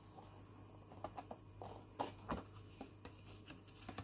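Light scattered clicks and rustling from a thin plastic deli cup lined with paper towel being handled and tilted, with a faint steady low hum underneath.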